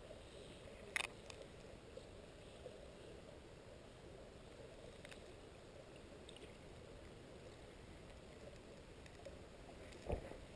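Faint, muffled underwater rush of river water heard from a submerged camera, dull and low with the highs gone. A few faint clicks come about a second in and again around five seconds, and a soft thump near the end.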